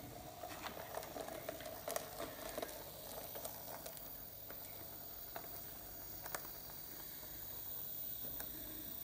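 A model VT 98 railbus set running along the track: a steady faint hum from the running train, with scattered irregular clicks from the wheels on the rails.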